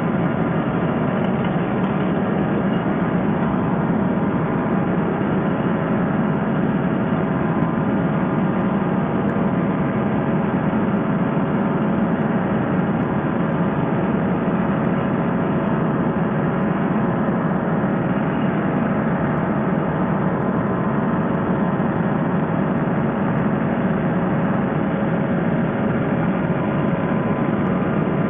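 Fresh Breeze Monster paramotor engine and propeller running steadily, with no change in pitch or level.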